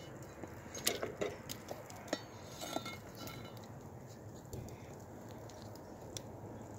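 Clinks and knocks of cookware on a metal grill grate as raw potato slices are tipped from a plastic cutting board into a pan over hot coals, busiest in the first half, with a few lighter taps later.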